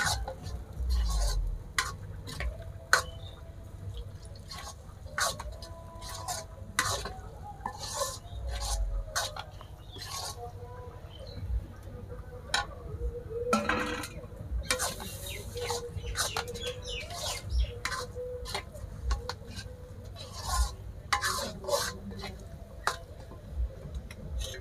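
Metal spatula stirring leafy greens in a black iron karahi, with many short clinks and knocks of metal against the pan and the steel bowl.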